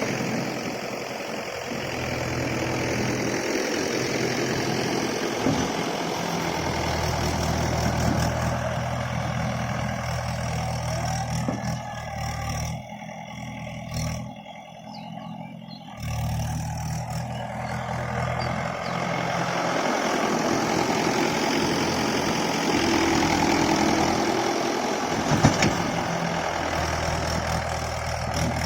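Tractor diesel engine running steadily, its low note dropping away for a few seconds about halfway through and then coming back.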